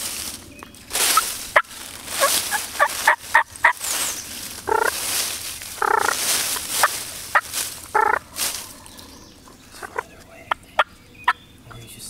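Wild turkey gobbler gobbling repeatedly at close range, a loud rattling call that comes again and again, mixed with short sharp calls and bursts of noise.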